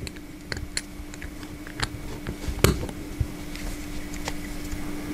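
Small irregular clicks and taps of a small synchronous gear motor's metal housing and gear parts being handled and pressed back together by hand, the loudest click about two and a half seconds in. A faint steady hum runs underneath.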